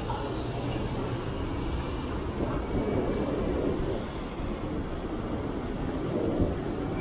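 Steady rumble of city street traffic, with vehicles running by and no single loud event standing out.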